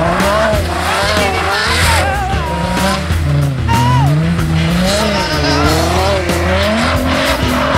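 Nissan GT-R (R35) drifting on a wet skid pad: tyres squealing in long, wavering tones that glide up and down as the car slides, over background music.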